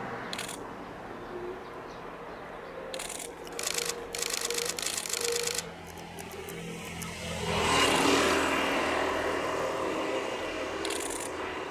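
Diesel excursion train (a converted KiRo 47 railcar set) crossing a steel girder bridge: a steady engine drone with a quick rattling clatter of wheels on the bridge, then a louder rushing swell about eight seconds in that slowly fades.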